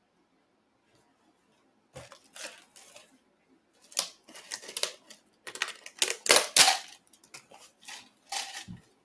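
A string of short rustling and scraping handling noises with a few dull low thumps, starting about two seconds in and loudest near the middle.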